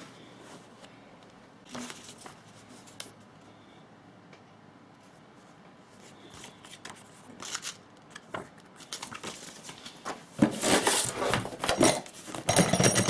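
Cardboard box and packaging being handled. A few light knocks come first, then from about nine seconds in there is close, dense rustling and scraping of cardboard, loudest near the end.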